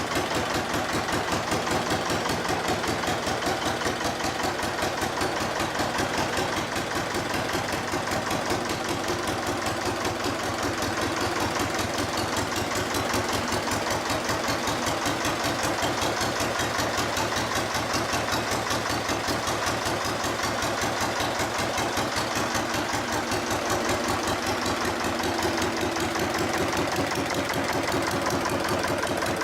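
Armstrong Siddeley AS2 two-cylinder air-cooled diesel engine running steadily at constant speed, with an even, rapid beat of firing strokes.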